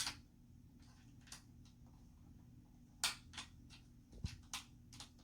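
Scattered sharp clicks and light taps of a star (Torx) screwdriver and the plastic housing of a Dyson triggerhead as its screws are undone.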